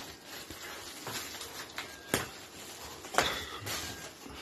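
Packaging being handled while a game console is unboxed: soft rustling of plastic wrap and cardboard, with two sharp clicks about two and three seconds in, the second the louder.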